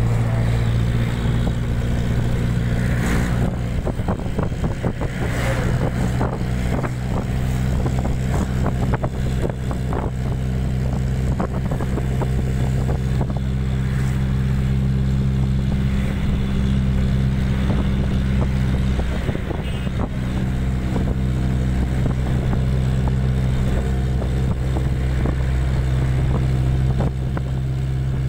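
Bus engine droning steadily, heard from inside the moving bus, with road noise and frequent small rattles and knocks from the bus body.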